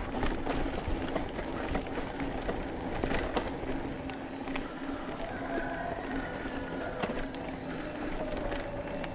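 Mountain bike rolling over a rough dirt trail, the bike rattling with many small irregular knocks over steady tyre and ride noise.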